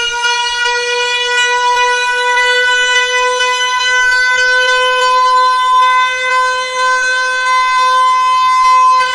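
Disaster warning siren holding one long, loud, steady tone, its pitch creeping up only slightly.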